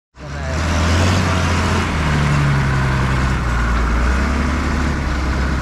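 An engine running steadily, a loud low hum whose pitch shifts slightly.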